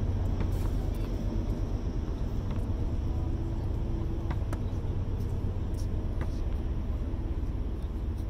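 Steady low outdoor background rumble with a few faint, sharp knocks scattered through it.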